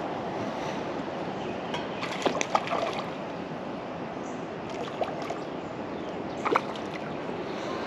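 Water sloshing and splashing as a hooked crappie thrashes at the surface beside a kayak, over a steady wash of water; a few short, sharp splashes come near the middle and again near the end.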